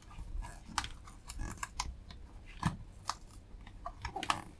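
Irregular small clicks, crackles and scrapes of a thin pick and fingertips prying and peeling the adhesive pad from the plastic base of an audio docking station.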